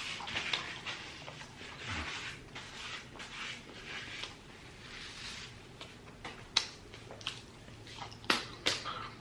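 Close-miked chewing and wet mouth sounds of a person eating, with several sharp lip-smack clicks in the second half.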